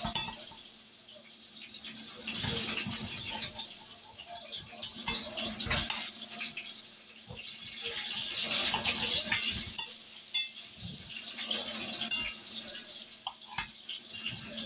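A knife scraping around the inside of a cast iron skillet, loosening a round of cornbread from the pan and then cutting into it. Scraping strokes come in waves every few seconds, with several sharp clicks of the blade against the iron.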